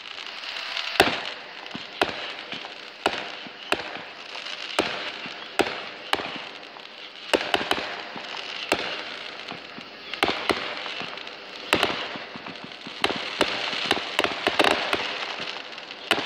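Aerial fireworks going off: a steady string of sharp bangs at irregular intervals, roughly one or two a second, with a high hiss between them.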